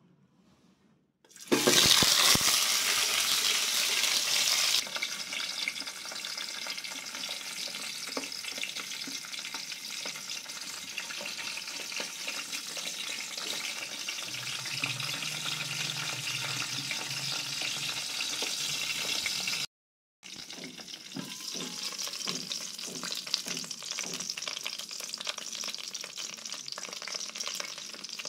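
Pork sausages frying in hot oil in a pan: a loud sizzle starts suddenly about a second in, then settles into a steady, quieter sizzle. It cuts out for a moment about two-thirds through and comes back.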